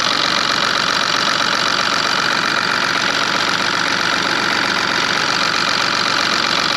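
The BMW 116d's 1.5-litre three-cylinder diesel engine idling steadily with a diesel clatter, heard up close in the open engine bay while it is being warmed up to free a seized-prone glow plug.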